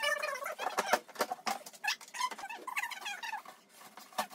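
Plastic roller-shutter box cover being pried open and pulled away: irregular clicks and knocks, with short high squeaks.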